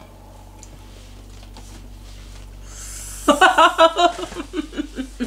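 A few faint clicks in a quiet room, then about three seconds in a sharp breath and a burst of laughter: short pitched 'ha-ha' pulses, about six a second.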